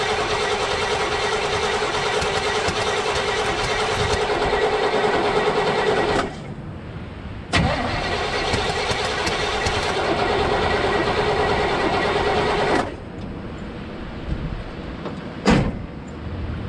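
1978 Chevy C50's 350 V8 cranking on the starter without catching, in two runs of about six and five seconds, each cut off sharply, with a click between them and a short sharp knock near the end. The engine is getting fuel but no spark.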